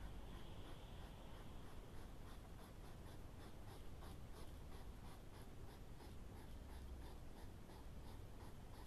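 Faint, steady run of short scratchy clicks, about three to four a second, from hedgehogs at a feeding dish.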